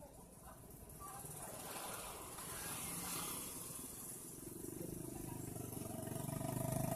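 Vehicle engine labouring on a steep uphill climb, a low rapid pulsing rumble that grows louder over the last few seconds, with a broad rush of noise around the middle.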